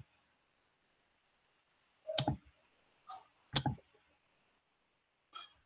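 Computer mouse clicking: four single clicks spread irregularly over a few seconds, with dead silence between them.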